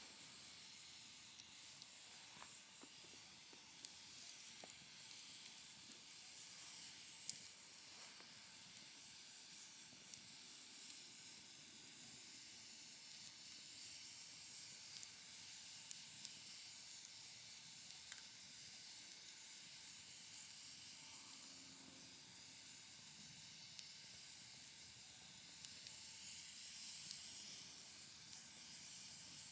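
Wood fire burning in a folding fire pit: a faint, steady hiss with a few sharp crackles and pops from the burning firewood.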